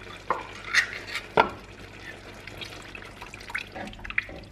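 Coconut milk pouring and dripping from a can into a pot of simmering noodles, with a few sharp clunks, the loudest about a second and a half in. Near the end a wooden spatula starts stirring the pot.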